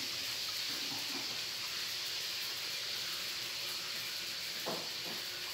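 Steady background hiss, with a faint short sound near the end.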